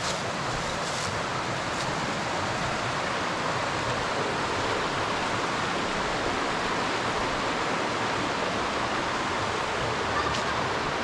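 Mountain creek water rushing steadily over rocks, with no change in level.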